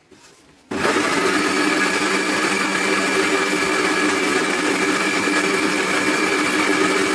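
Countertop electric blender switched on about 0.7 s in and then running steadily at full speed, with a steady motor whine over the churning of a thick mixture of frozen bananas and coconut milk being blended smooth.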